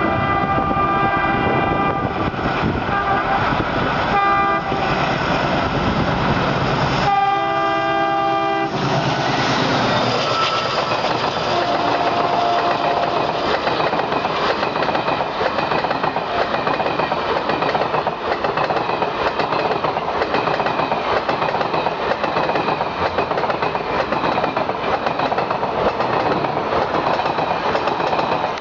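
Indian Railways WDM3A diesel-electric locomotive sounding its horn, with a short blast a few seconds in and a longer blast around seven to nine seconds, then the locomotive and its coaches passing with a steady loud rumble and rhythmic wheel clatter over rail joints.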